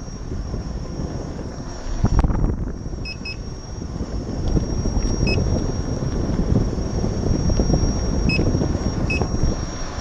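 Wind rushing over the camera microphone and a steady rolling rumble as a Gotway MCM4 electric unicycle rides over paving, with a sharp knock about two seconds in. A few very short high blips sound here and there.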